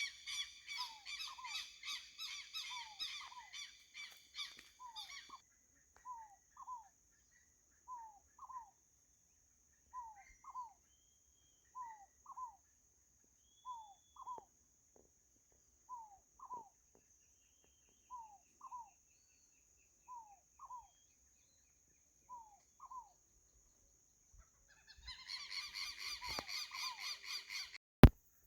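Birds calling: one repeats a pair of short downslurred notes about every second and a half, while another gives a loud, harsh chattering call at the start and again near the end. A steady high whine runs underneath, and a sharp click sounds near the end.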